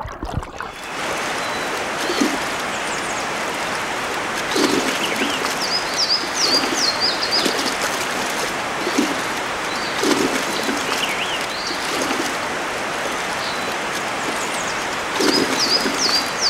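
Rocky stream running steadily, with a songbird chirping in two runs of quick high notes, one in the first half and one near the end. A few short low sounds come in between.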